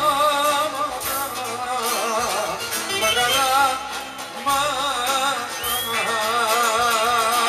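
Live Greek folk music from a small band: archtop electric guitar and tambourine under a wavering melody with strong vibrato, with a male voice singing in places.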